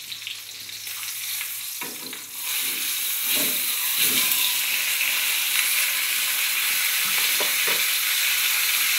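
Beef tenderloin frying in hot flax oil in a frying pan: the sizzle jumps much louder about two seconds in, as the piece is turned onto its unbrowned side, and then stays loud. A few knocks come from the wooden spatula working the meat.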